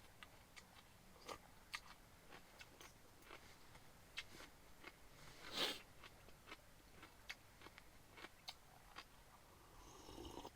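Faint eating sounds: sparse small clicks and crunches of chewing and biting, with one louder, brief noisy sound about five and a half seconds in.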